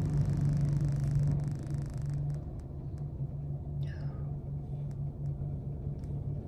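Steady low hum and rumble of a car's interior with the engine running, heard from inside the cabin. A hiss over it stops about two seconds in, and a few faint clicks follow.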